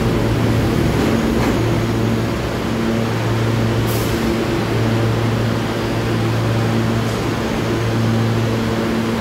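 R68 subway train pulling away along the elevated track, its running rumble carrying on as it recedes, under a steady low hum that swells and eases every second or so. A brief high hiss comes about four seconds in.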